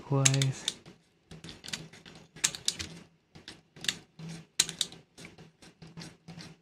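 Plastic gear train of a National VCR tape mechanism turned anticlockwise by hand, clicking sharply and irregularly about three to four times a second as it is wound toward its eject end position.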